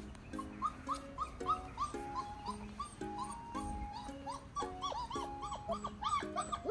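Nursing Noble Shepherd (wolf-hybrid) puppies whimpering and squealing in many short, high cries that rise and fall, growing busier near the end, as they jostle at their mother for milk. Background music with an even, plucked beat plays underneath.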